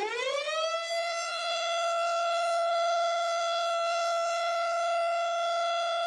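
Warning siren, sped up four times, finishing its rise in pitch and levelling off about a second in, then holding one steady tone.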